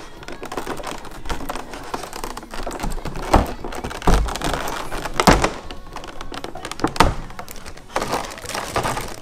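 Clear plastic packaging tray being pried apart and flexed by hand: continuous crinkling and crackling, with several sharp snaps and knocks, the loudest a little past the middle.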